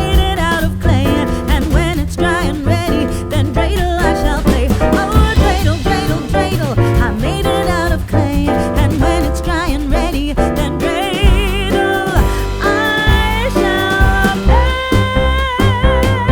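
Background music: an upbeat song with singing, a steady beat and instruments in a swing or jazz style.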